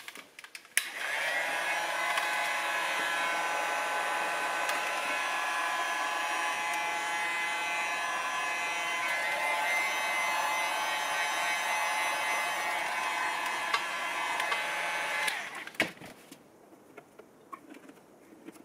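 Handheld electric heat gun switched on about a second in, blowing steadily with a rush of air and a fan whine, then switched off and spinning down after about fifteen seconds. A few light handling clicks follow.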